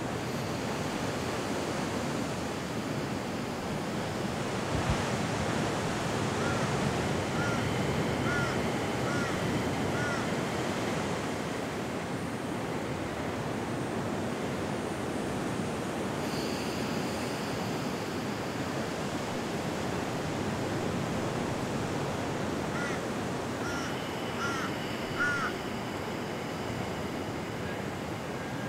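Slow, deep breathing: long airy inhales and exhales that swell and ebb over several seconds, with short bird chirps in two spells.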